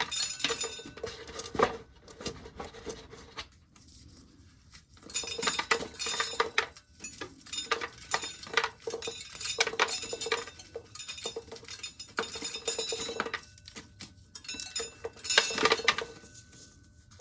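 Corn sheller working in stop-and-go stretches, shelled kernels clattering and clinking against metal with dense rapid clicks, broken by short quieter gaps.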